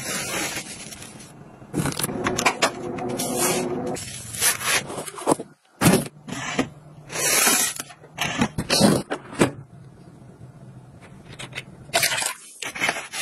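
The used sticky sheet of a lint roller being peeled back and torn off, crackling with a faint squeal as the adhesive lets go. After that comes a run of short scraping strokes as a blade slits the packing tape on a cardboard box.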